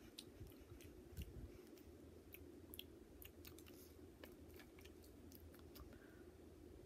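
Near silence: faint, scattered clicks and mouth noises over a low, steady hum.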